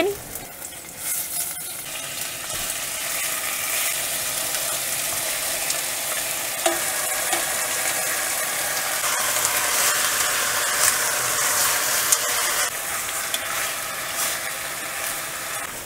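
Chopped chicken pieces sizzling and frying in hot oil in a clay pot while being stir-fried with chopsticks. The sizzle swells over the first few seconds, then holds steady, with a few light clicks from the chopsticks.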